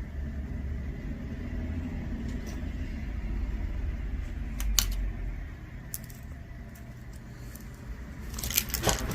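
Pieces of costume jewelry clicking and clinking now and then as they are handled and sorted, with a quick cluster of clinks near the end, over a steady low background hum.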